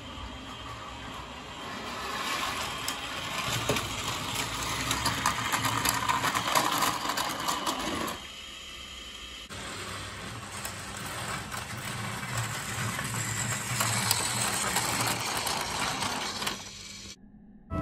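Battery-powered Plarail toy train, a Keikyu 1000 series model, running on plastic track: a small electric motor whirring with rapid clicking of wheels over the track joints. It grows louder as it approaches, drops away about eight seconds in, then builds again before fading near the end.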